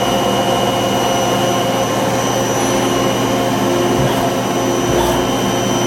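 Miyano JNC-45T twin-turret CNC lathe running: a steady machine hum with several constant whining tones, and two faint clicks about four and five seconds in.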